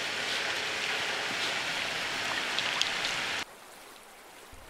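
Steady hiss of water, with a few faint ticks, that cuts off abruptly about three and a half seconds in, leaving a much quieter background.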